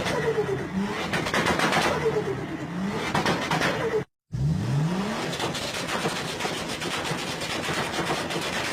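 Turbocharged engines revving up and lifting off, with the rapid fluttering chatter of turbo compressor surge over the engine note. There is a brief dead gap about four seconds in, after which a rev climbs again.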